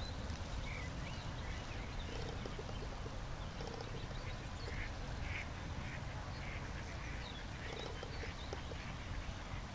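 Ducks quacking now and then on a pond, as short scattered calls over a steady low rumble.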